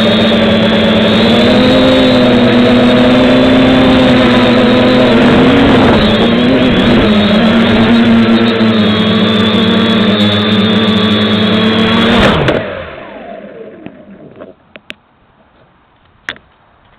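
FPV drone's electric motors and propellers running loudly as heard from on board, their whine shifting in pitch with throttle changes midway, then cutting out about twelve seconds in and spinning down. A few light knocks follow.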